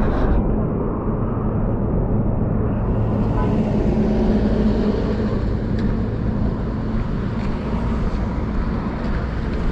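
Motorcycle engine running under way, picked up by an action camera's built-in microphone, with road and wind noise; its note rises a little about three to five seconds in.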